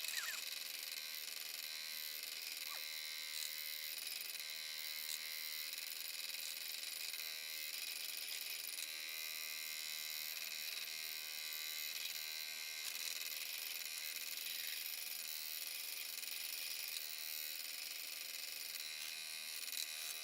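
Electric scroll saw running and cutting a piece of purpleheart wood: a steady buzz with a fine rattle, unbroken throughout. The blade is one that cuts poorly and won't hold a straight line.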